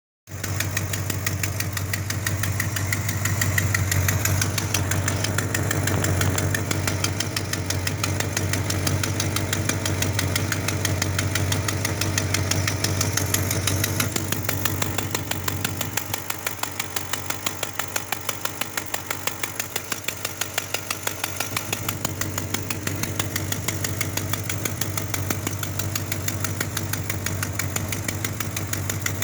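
Engine running at idle with a fast, even puffing or ticking pulse in its exhaust note, the sound of an exhaust leak.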